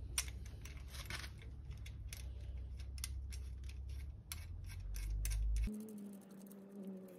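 Irregular light metallic clicks and taps from small bolt hardware being handled and fitted while a bicycle stem catcher is swapped, over a steady low hum that stops abruptly near the end.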